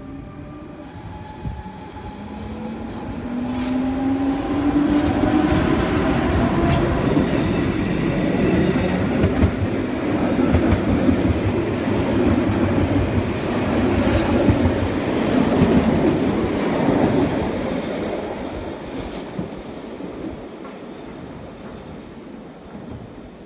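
GoldenPass Panoramic train passing close by, hauled by an electric locomotive. A whine rises in pitch over the first few seconds. The carriages follow with a loud rumble and clicking of wheels over the rail joints, which fades as the train moves away.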